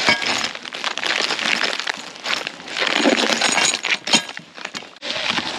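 Packaging rustling and crinkling as kit parts are unwrapped and handled, with hard clicks and clinks of the parts, the sharpest about four seconds in.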